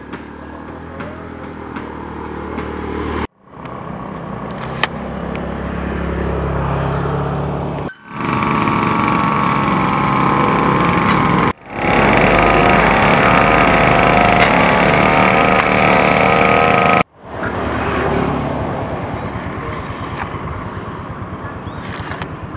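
Road traffic in a string of short clips that cut off abruptly: a motorcycle engine running low and coming closer, then passing vehicles. The loudest stretch, past the middle, holds a steady pitched drone.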